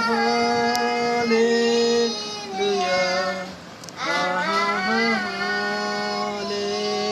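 A boy singing a Hindi Christian devotional song, holding long notes across two phrases with a short breath break about three and a half seconds in.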